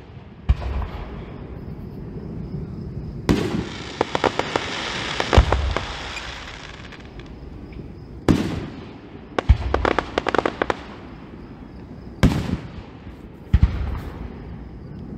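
Aerial fireworks shells bursting: about seven deep booms a second or few apart, with two runs of rapid crackling, about four seconds in and again around ten seconds.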